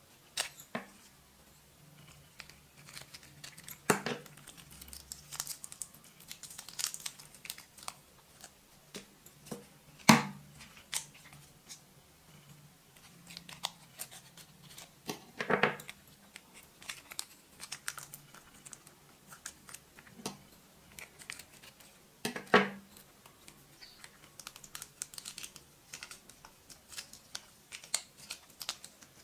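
Crinkling of a small plastic sachet being handled and snipped open with scissors, a patter of small crackles with a few sharper snips or clicks standing out.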